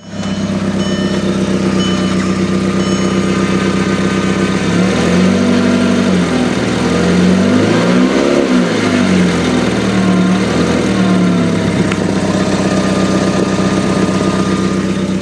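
Mk4 VW Jetta engine running at idle, its speed rising and falling gently a few times from about five to twelve seconds in, with a small exhaust leak near the catalytic converter that the owner says is only slightly audible.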